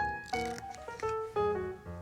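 Background piano music playing a gentle melody of single notes and chords.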